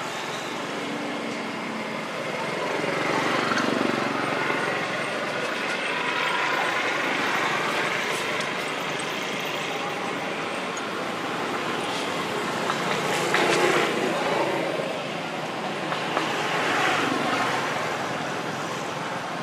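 Steady outdoor background noise, swelling and fading a few times, like passing traffic, with faint voices in it.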